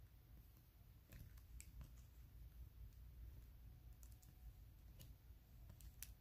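Near silence with faint, scattered clicks and ticks of baseball trading cards being handled and flipped through by hand, over a low steady hum.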